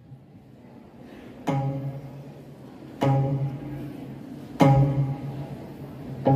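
Gayageum (Korean plucked zither) playing slow, single low plucked notes, about one every one and a half seconds, each ringing and fading away. The first comes about a second and a half in, after a quiet start.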